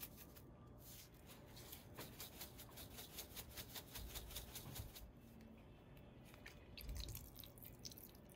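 Pepper mill grinding black pepper: a fast run of faint, gritty clicks, about five a second, that stops about halfway through, followed by a few light clicks and a soft knock.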